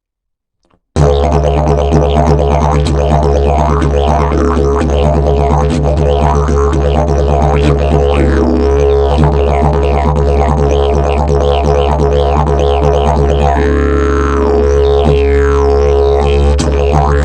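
Slide didgeridoo of fiberglass and prickly pear fiber, starting about a second in with a steady low drone. Above the drone, overtones sweep up and down as the player shapes the sound with the mouth.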